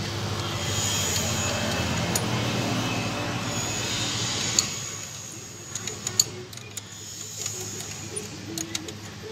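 A steady background rumble fades out about four and a half seconds in. After that, a spanner clinks against the steel injector pipe fittings of a diesel engine as they are undone, in sharp, irregular metallic ticks.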